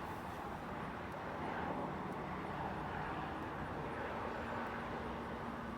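Steady wash of distant highway traffic noise, with a faint low hum joining about four seconds in.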